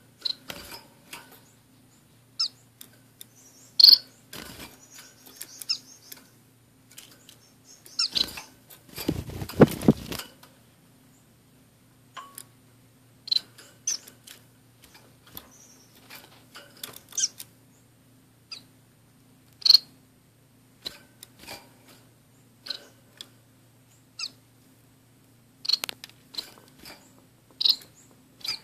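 Small caged finches, orange-cheeked waxbills and a society finch, giving short, high chirps every second or so. About nine seconds in there is a louder rustling burst lasting a second or two. A faint steady hum sits underneath.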